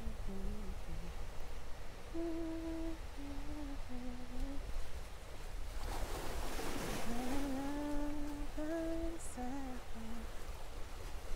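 A person humming a slow tune in held notes, over the steady wash of small waves on a rocky shore. A louder wash of surf comes about six seconds in.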